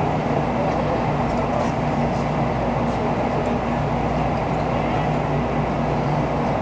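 Steady hum inside a stationary Shinkansen car, its onboard equipment and ventilation running, with a few low steady tones under a broad even noise.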